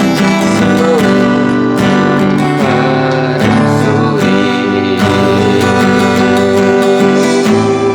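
Guitar playing a melody with bent, wavering notes over plucked accompaniment.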